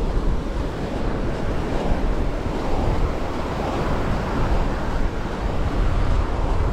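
Wind rushing over the microphone during a ride, a steady low rumble that buffets up and down.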